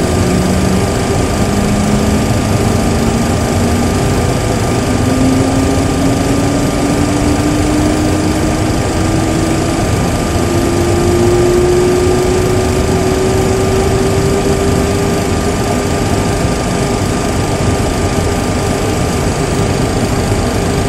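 Simulated Boeing 737 Classic jet engine (CFM56-3) spooling up during its start after the start lever goes to idle: a whine that rises steadily in pitch for about fifteen seconds and then levels off as the engine settles toward idle, over a steady loud background hum.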